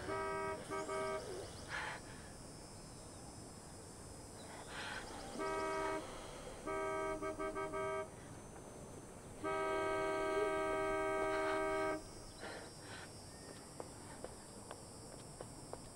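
Car horn honking in repeated blasts: two short honks at the start, another honk about five seconds later, then a string of quick stuttering taps, and finally one long blast of about two and a half seconds.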